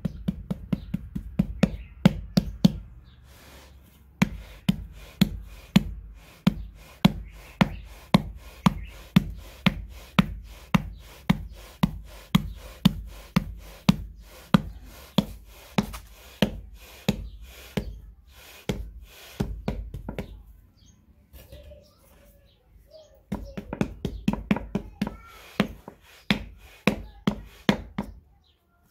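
Hand-held round clay anvil knocking against the inside of an unfired clay cooking pot dusted with sand, beating and shaping its wall. The knocks come at about two a second, break off briefly a little past the middle, then resume.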